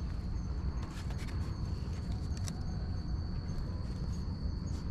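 Night forest ambience: a steady high-pitched insect trill over a continuous low rumble on the microphone, with a few faint rustling ticks.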